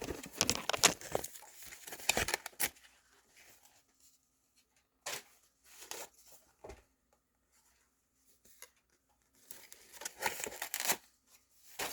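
Sock packaging being handled and pulled apart, crinkling and tearing: a spell of rustling at first, a few short sounds in the middle, and another spell of rustling near the end.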